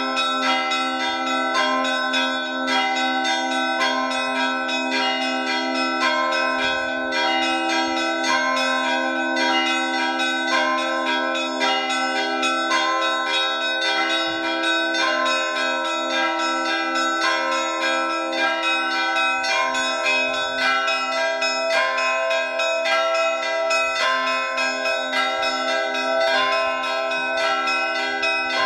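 Russian Orthodox church bells rung together in a continuous peal: small bells struck in rapid, dense patterns over the ringing of larger bells. About halfway through, a lower bell takes up a steady, quick beat.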